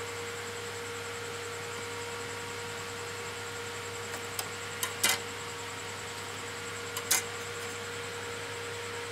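Sharp plastic clicks of memory-slot retaining clips being pushed open and a RAM module pulled from its slot on a desktop motherboard: a quick cluster of clicks about four to five seconds in and a pair about seven seconds in, over a steady hiss with a faint steady hum.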